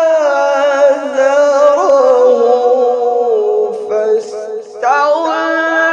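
A male reciter chanting the Quran in melodic tajweed style, unaccompanied, drawing out one long phrase that slowly falls in pitch. He takes a short breath about four seconds in, and the next phrase begins just before five seconds.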